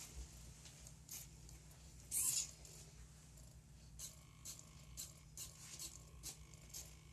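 A small pen-drawing robot tracing strokes on paper: faint short scratches of the pen, a louder scrape about two seconds in, and a faint steady motor whine with light ticks from about four seconds in.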